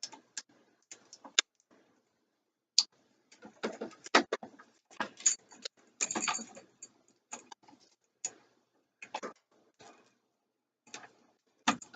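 Irregular clicks, taps and short rustles of hands handling a roll of electrical tape that has tangled while being wrapped around an outlet.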